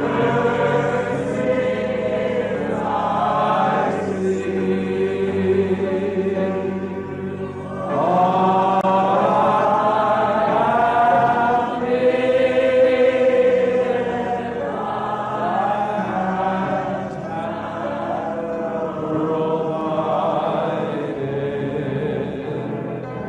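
A congregation singing together in worship, many voices holding long drawn-out notes that swell and shift in pitch over a steady low drone.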